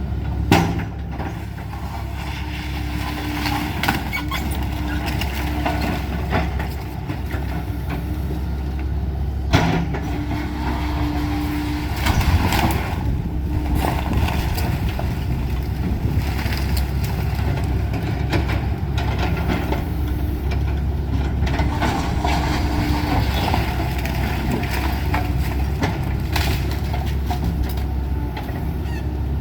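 Excavator's diesel engine running steadily during a house demolition, with a humming tone that comes and goes and a few sharp knocks and crunches of the house being broken up.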